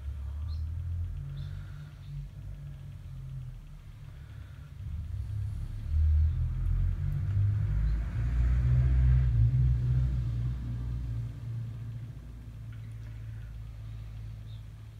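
A low rumble that swells about halfway through and then settles into a steadier low drone.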